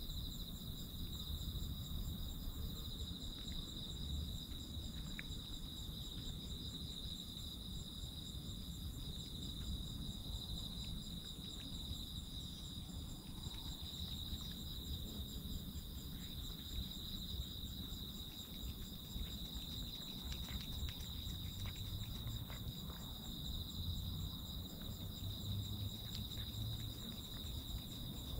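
Crickets chirping in a steady, high-pitched chorus over low background noise, with faint scattered clicks.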